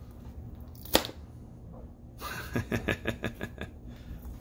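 A sharp crack about a second in as the 3M 5200 bond between a plexiglass strip and a flexed piece of HDPE kayak plastic gives way. About a second later comes a quick run of crackling snaps as the rest of the adhesive bead pops free: the marine sealant has not bonded to the polyethylene.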